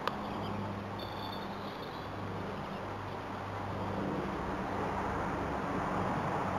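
A single sharp click from a croquet stroke, mallet and balls, right at the start. It is followed by steady outdoor background with a low hum and a short bird chirp about a second in.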